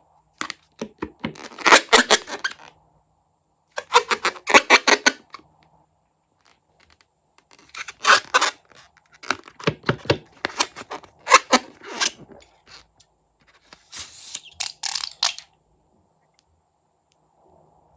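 Close-up handling noises of slime-making: four bursts of rapid crackly clicks and squelches with pauses between them.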